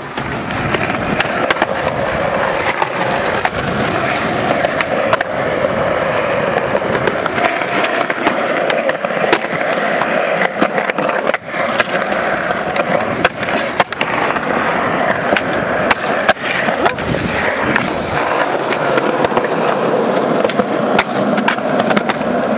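Skateboard wheels rolling steadily over worn concrete, a continuous rumble with many sharp clicks.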